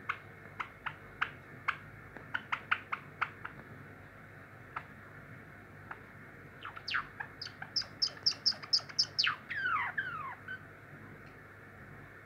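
Java sparrow singing its song practice: a run of sharp clicking notes over the first few seconds, then a quick series of high-pitched notes about halfway through that ends in a couple of falling, slurred whistles.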